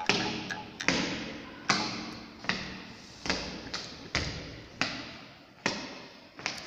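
Slow, even percussive hits, a little more than one a second, each dying away before the next.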